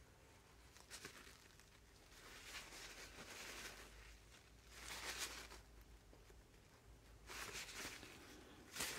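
Faint swishing of a paper towel rubbed along the steel blades of new chisels in several separate strokes, wiping off their anti-corrosion oil coating.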